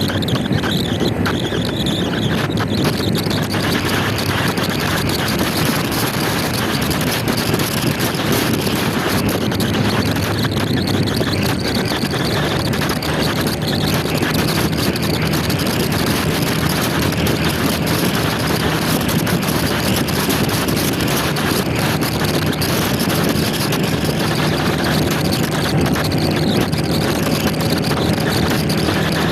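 Motor scooter running at riding speed, with a steady engine note under heavy wind rush on the microphone; the engine note comes through more clearly about halfway through.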